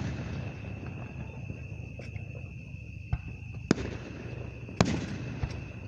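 Aerial fireworks bursting: a handful of separate booms a second or so apart, the two loudest in the second half, over a low rumble of the show.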